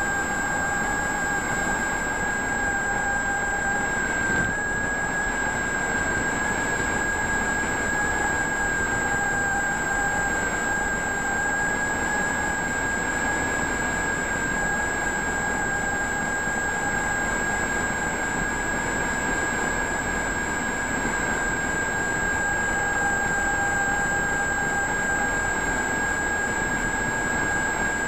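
Multiplex FunCub model airplane's electric motor and propeller whining at a steady cruise throttle over a rushing noise, heard from the onboard camera mounted on the plane.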